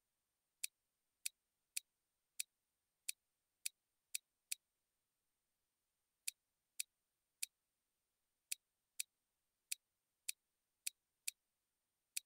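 Computer mouse button clicking: about eighteen single sharp clicks at an uneven pace of one or two a second, with a pause of more than a second near the middle.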